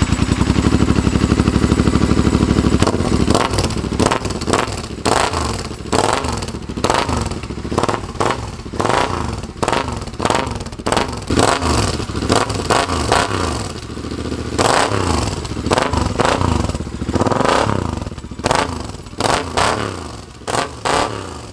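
Metal clanking, clicking and scraping of spanners and steel exhaust parts while a motorcycle's chrome exhaust silencer is unbolted and pulled off. It opens with about three seconds of fast, even rattling.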